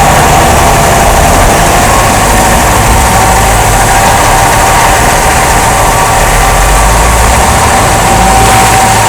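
2005 Jeep Grand Cherokee with the 5.7 L V8 running, a loud, uneven low rumble under a steady higher tone. The rumble is the drivetrain thumping that the owner traced to a worn rubber support bushing on the front drive axle and a bad front driveshaft universal joint.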